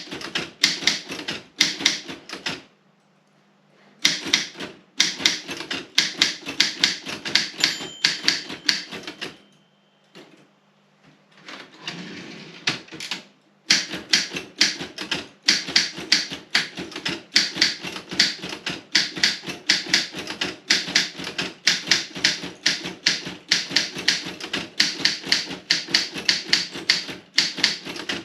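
Robotron 20 typewriter being typed on: sharp keystroke clacks come in quick runs, broken by two short pauses. About twelve seconds in there is a longer rasping sound before the typing resumes.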